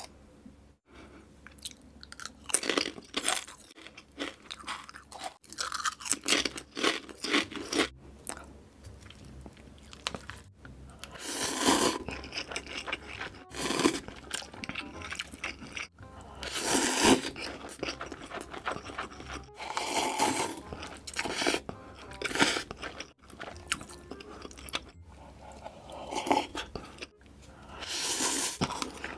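Close-miked eating of Mamee Ghost Pepper black potato chips and spicy instant noodles. Crisp crunching and chewing come first, then several louder noisy bursts, typical of noodles slurped from chopsticks.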